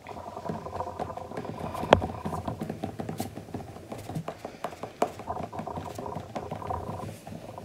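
Hands rolling a coil of air-drying clay back and forth on a board: a rapid rubbing and patting, with a sharp knock on the table about two seconds in and a smaller one about five seconds in.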